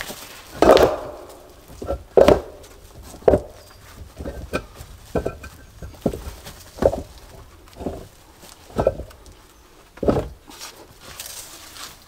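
Repeated dull knocks and thuds from hand building work, about seven strong ones one to two seconds apart with smaller taps between, the loudest in the first few seconds.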